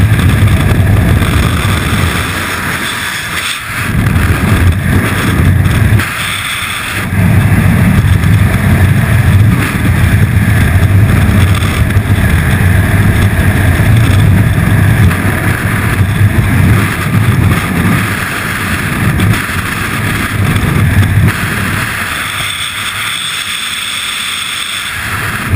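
Freefall wind rushing and buffeting over a helmet-mounted camera's microphone, a loud steady rumble. A little over 20 seconds in it drops to a softer, thinner rush.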